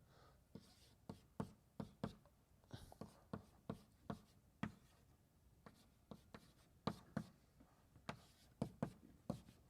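Chalk writing on a blackboard: a quiet run of short, irregular taps and scratches as a formula is written out.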